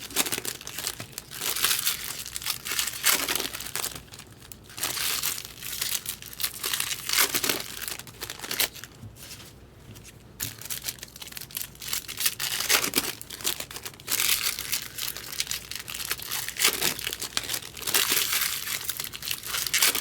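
Trading-card pack wrappers crinkling and tearing as packs are opened by hand, in irregular bursts with a quieter stretch about halfway through.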